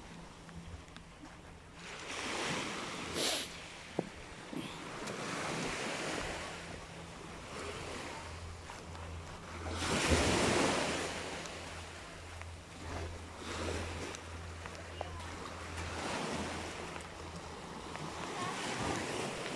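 Small sea waves washing onto a sandy, rocky shore in repeated swells, the biggest about ten seconds in, with wind buffeting the microphone.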